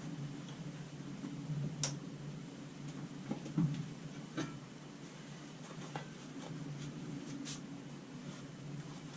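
A handful of light clicks and taps, scattered irregularly, over a steady low hum.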